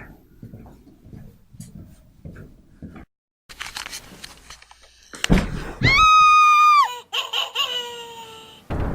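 A thud, then a loud high-pitched scream held for about a second, followed by a run of falling cackling laughs, like Halloween horror sound effects.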